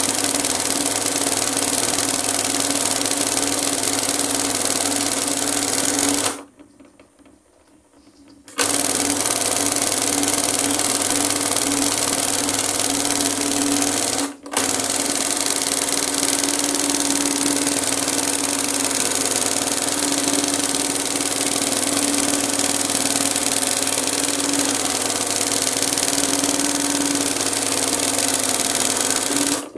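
Industrial embroidery machine running steadily as it stitches gold cord onto fabric, a fast mechanical chatter over a steady hum. The sound drops out for about two seconds near the quarter mark and cuts out for an instant around halfway.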